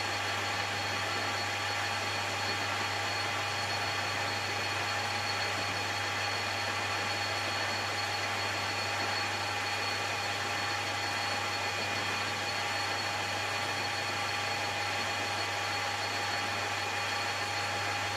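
Metal lathe running steadily while turning down bar stock for a mandrel: an even motor hum with a low drone and several steady higher whining tones.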